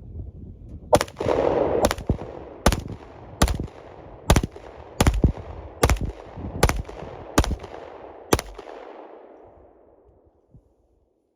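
Glock 48 MOS 9mm pistol firing ten shots at a steady pace, about one every 0.8 seconds, emptying a 10-round magazine, each shot echoing. The echo fades out about two seconds after the last shot.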